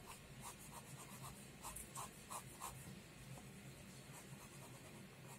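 Pen sketching on paper, faint: a run of about nine quick, short strokes in the first half, then only light traces.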